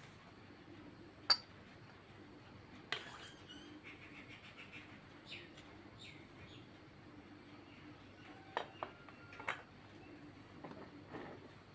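A few sharp clicks and knocks of piping tools and a spatula against stainless-steel mixing bowls, the loudest about a second in, over a faint steady hum, with a few faint chirps in the middle.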